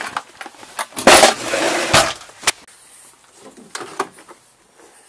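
Hand tools and plastic tool cases being handled and packed away: a loud rattling scrape about a second in, then scattered clicks and knocks.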